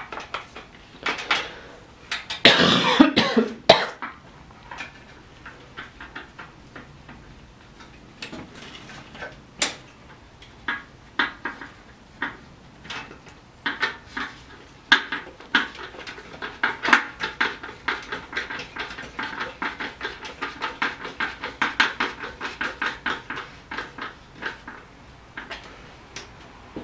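Metal hand tools and small parts clicking and clattering during work on a pit bike, with a dense, quick run of clicks in the second half. A loud, rough burst of noise comes about two and a half seconds in.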